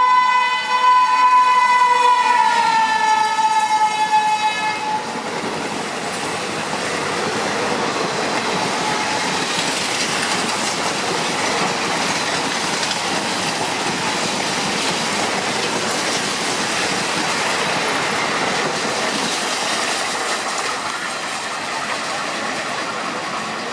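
Horn of a WAP-7 three-phase electric locomotive sounding as it passes at speed, its pitch dropping as it goes by about two to four seconds in, ending about five seconds in. Then the steady rush and clatter of the express's coaches running through.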